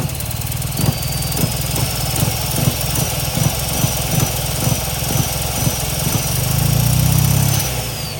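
Mitsubishi Starion's turbo four-cylinder engine running rough just after start-up, with uneven thumps about two to three times a second and a faint high whine that follows the revs. The revs swell near the end and then drop back. It is misfiring and not running on all four cylinders, which the owner puts down to bad spark plug wires.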